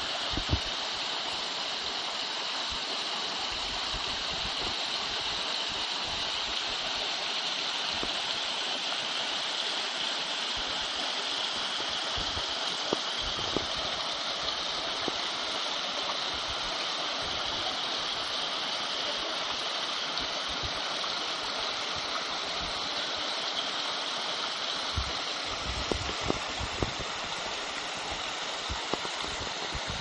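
A small forest creek tumbling over limestone ledges in a low waterfall: a steady rush of falling water, with a few brief knocks here and there.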